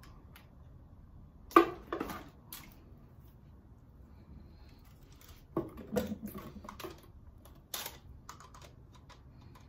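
Scattered small clicks and knocks of hands handling tools and small parts while wiring an electrical control panel. The sharpest click comes about one and a half seconds in, and a cluster of taps follows around six seconds in.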